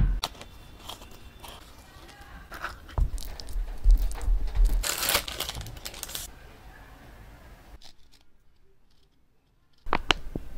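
Thin plastic film crinkling and tearing as it is peeled off a processed cheese slice, loudest about five seconds in. Around it are light knocks and taps of bread and hands on a wooden cutting board, a sharp one at the very start.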